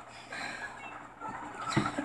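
A person burping: a short burp near the end, after a quieter stretch with only faint noise.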